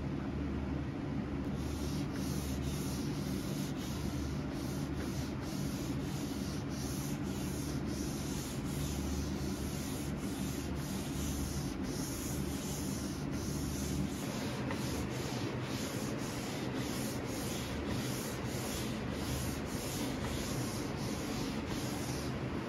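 A small pad rubbing oil finish into a wooden chest top in quick back-and-forth strokes, about two a second, starting about a second and a half in. A steady low hum runs underneath.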